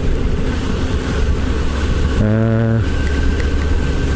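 Yamaha FZS1000 Fazer motorcycle riding along, its engine running steadily under heavy wind rush on the helmet microphone. About two seconds in, a steady low-pitched tone cuts through for about half a second while the hiss drops away.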